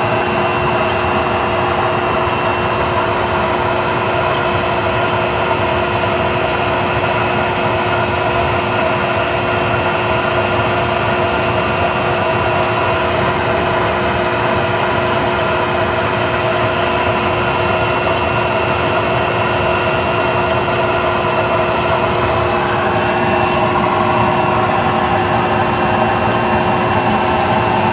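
Homemade oil-burning stove running steadily, its blower forcing air through the pipe into the burning fish oil, giving a constant whir of fan and flame with a steady hum.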